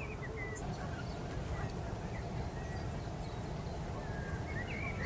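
Outdoor field-recorded ambience: a steady low rumble with a few faint bird chirps, a couple just after the start and more near the end.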